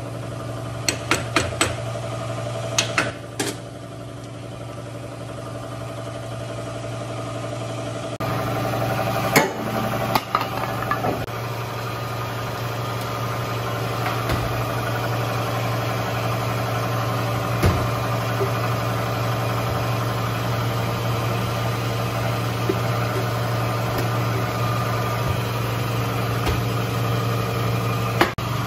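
A motor running with a steady hum, with sharp metallic clicks of hand tools in the first few seconds and a few single knocks later on.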